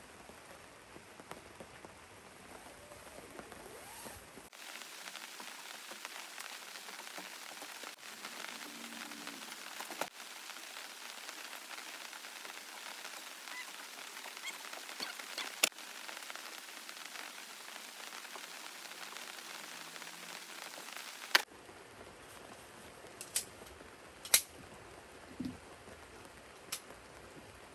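Steady rain falling, with a few sharp ticks and drips here and there. The texture of the rain changes abruptly about four seconds in and again about twenty-one seconds in.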